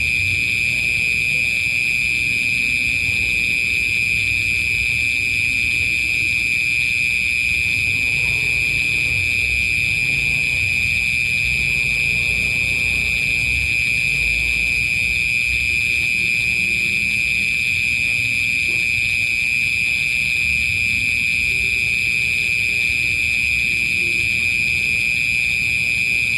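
Crickets chirping in a dense chorus: one continuous high trill, steady and unbroken, over a faint low rumble.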